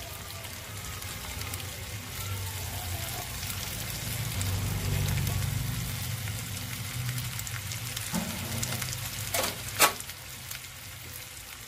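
Sliced potatoes frying in oil in a kadai: a steady light sizzle and crackle. Near the end there are a couple of sharp knocks, one loud.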